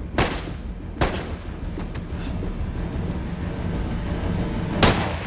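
Two handgun shots about a second apart, then a single louder gunshot near the end, each with a short echoing tail, over a film score.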